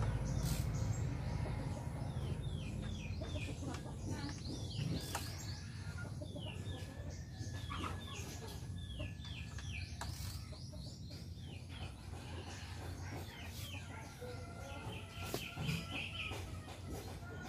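Birds chirping in runs of short falling calls, with a few sharp clicks between them.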